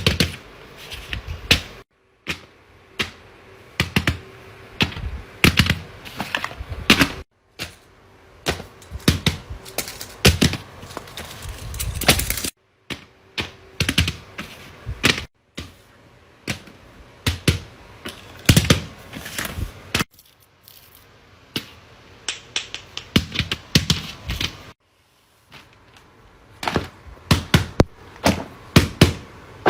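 Fidget toys being handled: clusters of quick plastic clicks and taps, broken by several short silent gaps.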